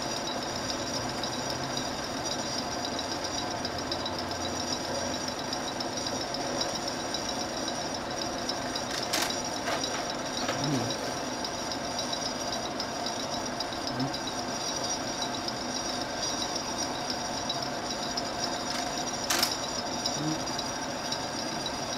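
16mm film projector running steadily, with a sharp click about nine seconds in and another near the end.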